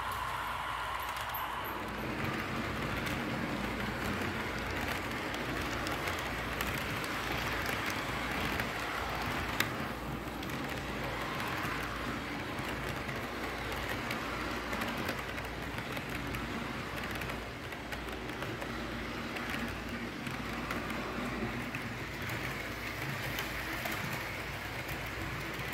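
HO scale model freight train rolling past on plastic-roadbed track: a steady running noise of its wheels and cars on the rails, with one sharp click about ten seconds in.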